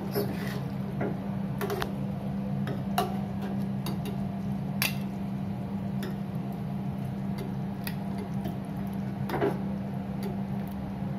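Steel ladle clinking and scraping against a steel cooking pot and a glass serving dish while curry is scooped out: a few scattered sharp clicks. A steady low hum runs underneath.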